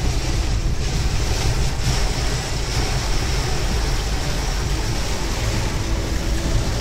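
Heavy rain beating on a moving car's body and windscreen, mixed with wet road noise from the tyres, heard from inside the cabin: a steady, even rushing with a deep rumble underneath.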